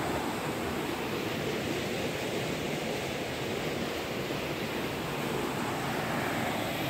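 Floodwater in a swollen muddy river rushing and churning past a concrete wall: a steady, unbroken rushing noise.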